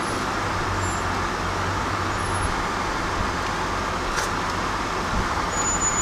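Tow truck's engine running steadily while the truck moves, hauling a car on its wheel-lift, heard from inside the cab as a constant low hum and rumble. A faint click about four seconds in.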